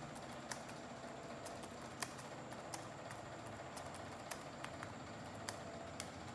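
Sharp, irregular clicks and crackles of a folded sheet of old newspaper being handled and pressed between the fingers, over a steady background hiss.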